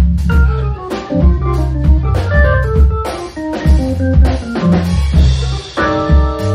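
Jazz organ trio playing: a Hammond-style organ runs a quick single-note line over a walking bass line and drum kit, then holds a full chord near the end, with cymbals ringing over it.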